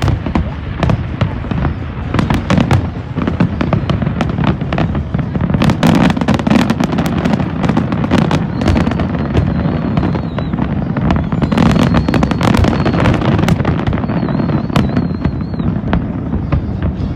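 Fireworks display: dense crackling and popping over a continuous rumble of bursting shells, with a high warbling whistle twice in the second half.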